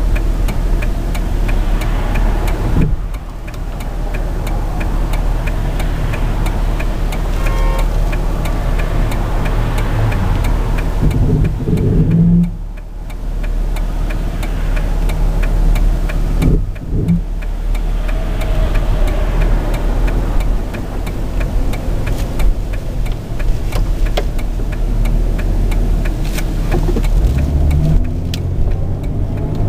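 Jeep Grand Cherokee driving, its engine and road noise heard from inside the cabin, with a steady low rumble that dips briefly a few times.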